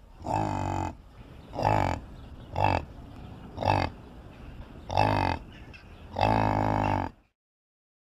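Yak grunting: a series of six low calls about a second apart, the last one the longest, stopping near the end.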